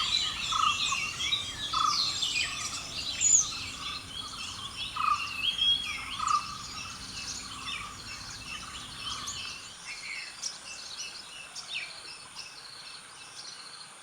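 Forest bird chorus: many birds chirping and calling over one another, with a low note repeated about twice a second for the first half, over the steady high whine of insects. It slowly fades out.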